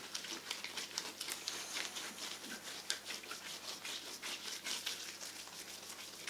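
Hands massaging a bare foot: a quick, irregular run of wet rubbing and squishing sounds, several strokes a second.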